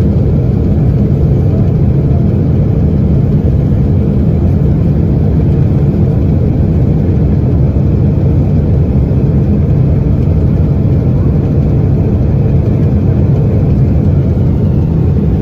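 Loud, steady, low roar heard inside a Boeing 777 cabin in flight. It comes from a Pratt & Whitney PW4000 jet engine that has disintegrated, its cowling torn off and a fire burning in its core, mixed with the airliner's in-flight noise.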